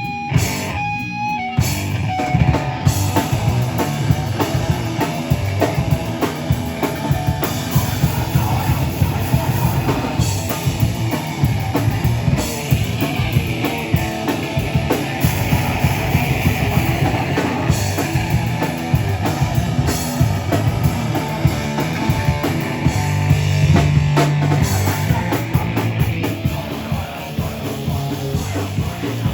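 Live heavy rock band playing loud, with distorted electric guitars and a drum kit; after a couple of seconds of sparse held notes the full band comes in and keeps going.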